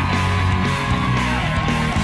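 Background music with guitar, playing steadily under on-screen text.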